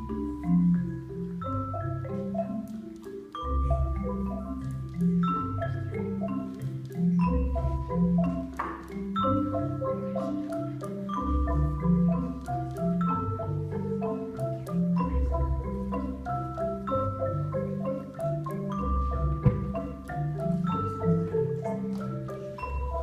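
Background music with a marimba-like mallet-percussion melody over a bass line that repeats about every four seconds.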